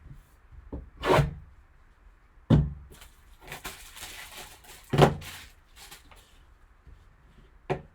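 A sealed cardboard trading-card box being handled and opened on a table: three dull knocks and a couple of seconds of scraping and rustling of cardboard and wrapping.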